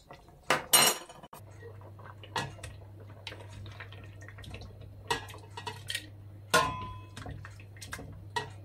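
Plastic ladle knocking and scraping against a stainless steel pot and the rim of a glass jar as hot marinated honey mushrooms are ladled into the jar: a handful of separate clinks, the loudest about two thirds of the way through with a short ring. A steady low hum runs underneath from about a second and a half in.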